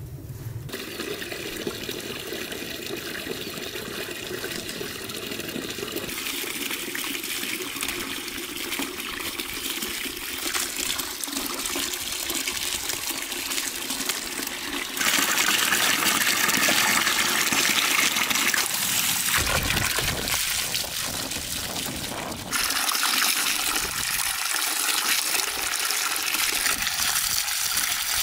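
A stream of running water pouring into a metal basin and splashing as vegetables are rinsed in it. It comes in a few cuts and is louder from about halfway through.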